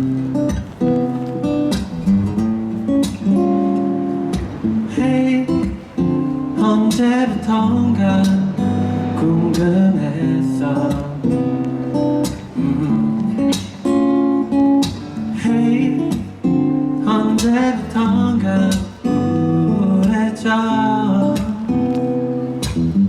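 Acoustic guitar strumming and picking the instrumental intro of a pop ballad, with steady rhythmic chord strokes and melodic fills.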